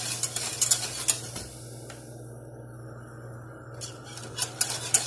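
Metal wire whisk clicking and scraping against the sides of an aluminium saucepan while whisking milk into a butter-and-flour béchamel. The whisking stops about a second and a half in, and a few more clicks come near the end.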